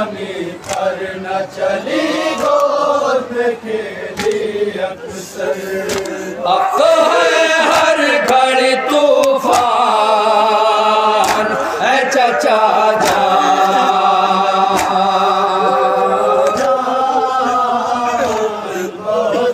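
A group of men chanting a noha, a sung Urdu lament, through microphones. It grows louder about a third of the way in, with long held lines.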